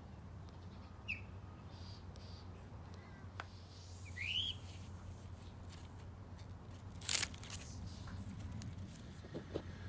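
A few short rising bird chirps over a low, steady hum. About seven seconds in comes a brief, crisp snip, the loudest sound: scissors cutting through a romaine lettuce stalk.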